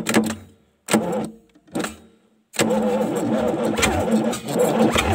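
Electric starter cranking a YaMZ-238 V8 diesel engine. It turns in short stop-start bursts, then from about two and a half seconds in it cranks continuously with an even pulse. The owner suspects the batteries are weak.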